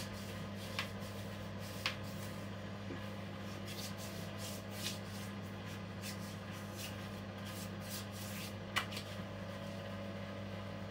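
Hands rubbing face cream into bare arms and then onto the cheeks: soft, repeated swishing of skin on skin with a few sharper taps, over a steady low hum.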